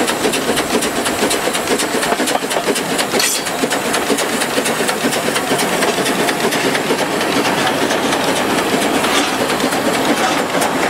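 Steam locomotive Bello running with a train, with a steady rhythm of short beats and steam hissing throughout. A louder burst of hissing steam comes about three seconds in.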